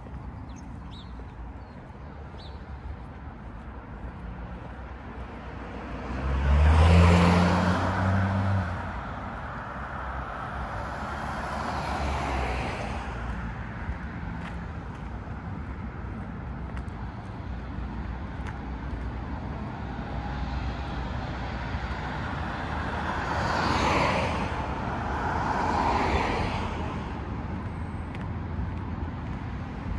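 Cars passing by on the street over a steady background traffic rumble. The loudest pass, with an audible engine hum, comes about a quarter of the way in, a fainter one follows shortly after, and two more pass in the last third.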